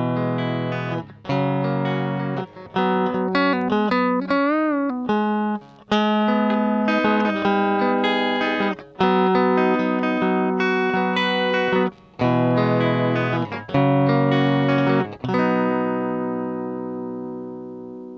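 Electric guitar played through a Kokko compressor pedal that is switched on: a short run of picked notes and chords. One note wavers with vibrato about four seconds in. The last chord is left to ring from about fifteen seconds and fades slowly.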